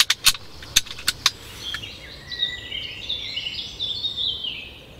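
A bird singing: a string of short high chirping phrases from about two seconds in, fading near the end. In the first second and a half, about six sharp clicks.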